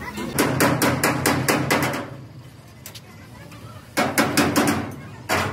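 Rapid hammer strikes, about five a second: a run of roughly eight lasting nearly two seconds, then a shorter run of about five some four seconds in, and a single strike near the end.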